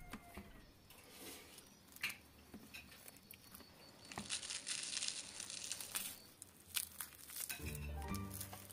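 Crisp, flaky baked pastry crackling and rustling as it is torn apart by hand, with scattered crunchy clicks and a longer crackle about four seconds in. Music comes in near the end.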